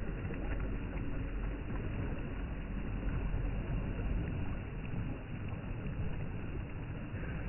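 Steady low rumble of wind on the microphone, with small sea waves washing onto the sand.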